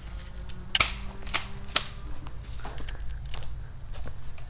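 Footsteps through a pine wood, dry twigs and branches snapping underfoot: a few sharp cracks about half a second apart, the loudest about a second in, then fainter ones.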